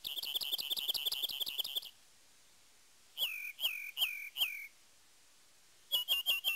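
A songbird singing clear whistled phrases: a quick run of repeated notes, then four slower notes that each slide down in pitch, then another quick run near the end.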